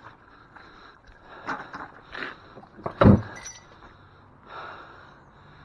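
Several knocks and clatters, with one heavy thump about three seconds in as the loudest sound.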